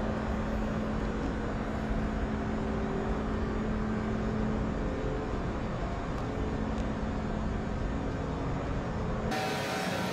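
Room tone of a large indoor exhibition hall: a steady low rumble with a faint steady hum, and a brief hiss about nine seconds in.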